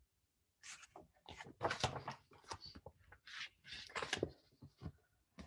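Pages of a picture book being turned and handled: a string of irregular paper rustles and soft knocks lasting about four seconds.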